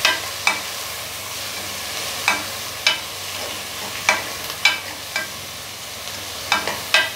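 Sliced onions, curry leaves and green chillies sizzling in hot coconut oil in an aluminium pressure cooker, stirred with a steel ladle that clinks against the pot about nine times, often in quick pairs.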